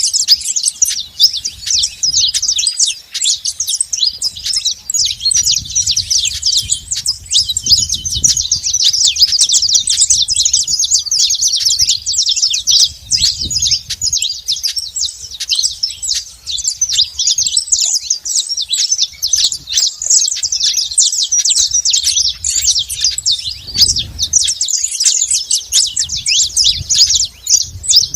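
Saffron finch singing: a dense, unbroken stream of rapid high chirps and trills. Low rumbles come and go underneath.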